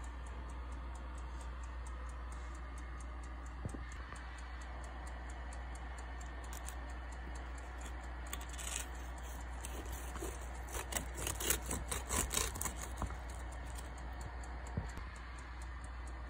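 Serrated knife sawing into a crisp-skinned roast chicken: a run of short scraping crackles about ten seconds in, lasting a few seconds, over a faint steady low hum.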